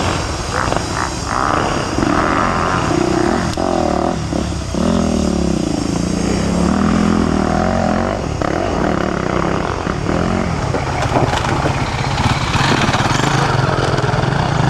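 Enduro motorcycles revving hard off-road. Their engine pitch rises and falls again and again as the throttle is worked.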